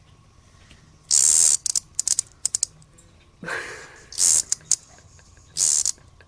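Cicada buzzing in short high-pitched bursts, three main ones about a second, four seconds and five and a half seconds in, with quick clicks in between: the buzz a handled cicada gives.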